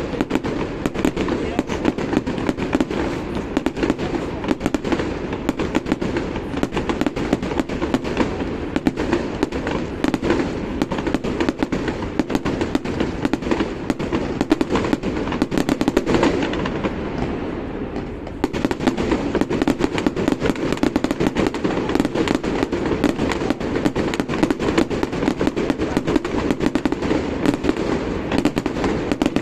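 Fireworks display going off in a dense, continuous run of bangs and crackles, easing briefly a little over halfway through before building up again.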